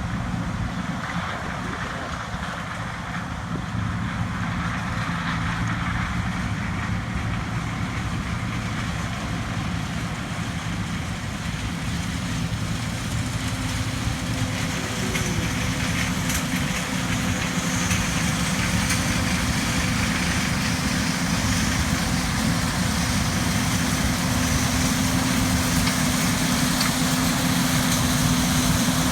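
Heavy corn-harvest machinery engine running steadily, growing slowly louder, with a further steady tone joining about halfway through.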